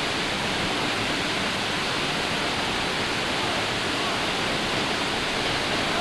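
Steady rush of a waterfall's falling water, an even, unbroken roar.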